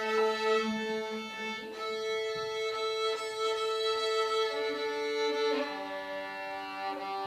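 Student string ensemble of violins and cello tuning: bowed strings hold a long, steady open A, and about six seconds in the sound shifts to lower held notes as other strings are checked.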